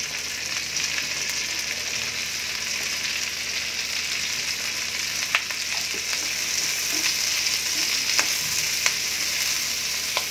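Sliced onions sizzling steadily as they fry over a high flame in oil and butter with garlic, ginger and green chilli, stirred with a wooden spatula. A few sharp clicks come in the second half as the spatula strikes the pan.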